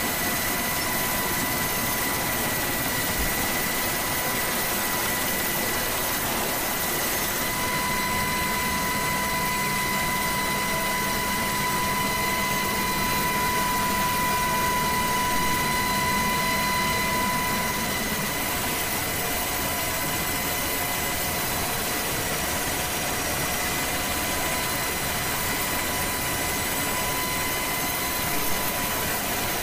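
Coast Guard rescue helicopter's turbine engines running steadily: a constant engine noise with a high, even whine, a little louder from about 7 to 18 seconds in.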